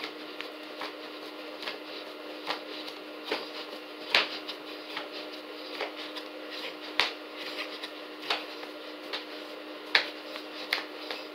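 Jumping jacks on a carpeted floor: a steady rhythm of landing knocks and thuds, about one a second, a few of them heavier, over a steady hum.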